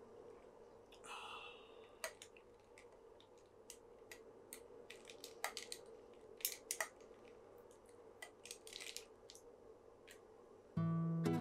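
Ice cubes clinking against a drinking glass as a straw stirs strawberry milk, a scattered string of light clicks, with a short sip through the straw about a second in. An acoustic guitar tune starts loudly near the end.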